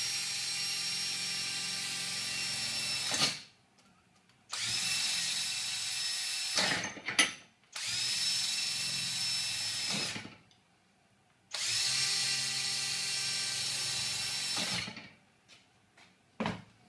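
Cordless drill with a 4.5 mm bit drilling rivet holes through steel trunking lid clamped in a vise. The motor whines at a steady pitch in four runs of a few seconds each, with short pauses between them and a few clicks and knocks near the end.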